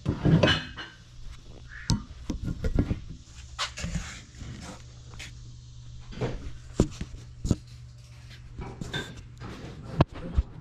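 Items being handled and packed into cardboard boxes: scattered knocks and clicks with short rustles, the sharpest knocks near the start and just before the end.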